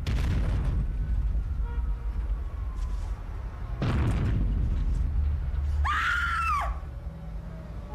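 A woman's short, high scream about six seconds in, rising and then falling in pitch. Under it runs a low rumble, with two heavy booms earlier on.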